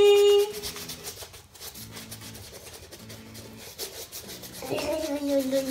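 Bristle paintbrushes scrubbing paint onto a woodgrain-textured EVA foam shield, in repeated short strokes. A voice holds a long note at the very start and again from about five seconds in.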